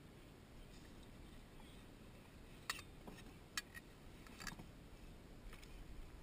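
A few sharp clicks and knocks of fishing gear being handled in a kayak as a landing net is brought out, three of them a little under a second apart in the middle, over faint quiet.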